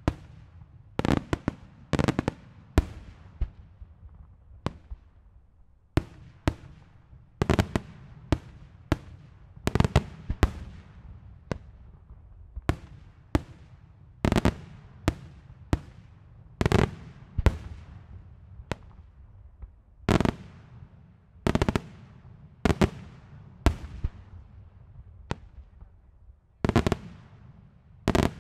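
Daylight fireworks: aerial shells bursting in a long, irregular series of loud bangs, roughly one or two a second and sometimes in quick clusters, each bang followed by a short echoing tail.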